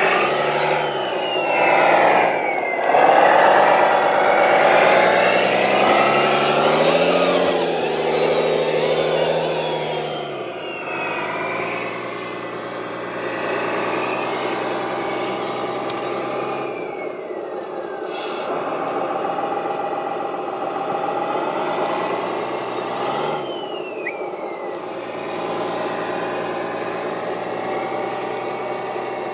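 Radio-controlled model construction vehicles working, their engine sound revving up and down in pitch and loudest in the first ten seconds. A high whine falls away several times as the machines slow.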